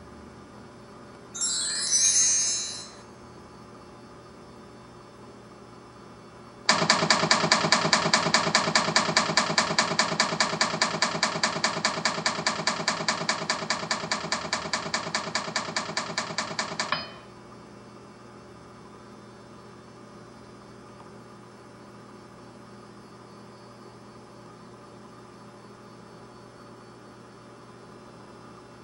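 Sound effects from a slideshow played on a TV: a short whooshing sweep near the start, then about ten seconds of a rapid, evenly pulsing ringing tone that cuts off suddenly, over a steady electrical hum.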